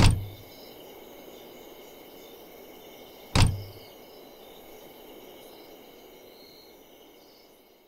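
Two car doors shutting with solid thuds, one right at the start and another about three and a half seconds later, over faint steady background noise.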